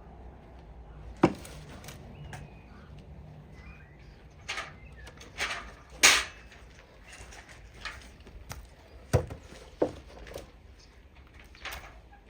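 Garden tidying by hand: a few sharp knocks and short rustling scrapes at irregular intervals, the loudest about six seconds in.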